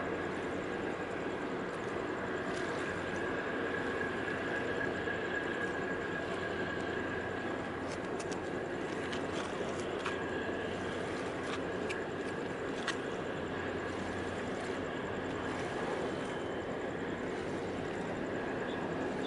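Steady drone of ship machinery across the harbour, with a faint constant high whine and a low hum, and a few light clicks near the middle.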